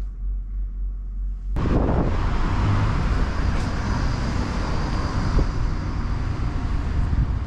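A low steady hum, then an abrupt cut about a second and a half in to outdoor traffic noise: a steady wash of passing cars with wind rumbling on the microphone.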